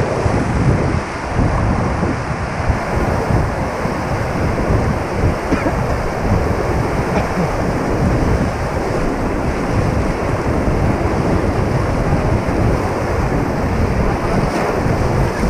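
Loud, steady rush of the Ganga's white water around a raft, with heavy wind buffeting the microphone.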